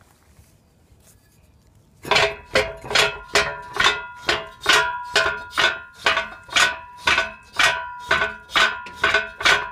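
Steel wheel clamp's mechanism clicking as it is worked against the tyre. The regular ringing metallic clicks, about two a second, start about two seconds in.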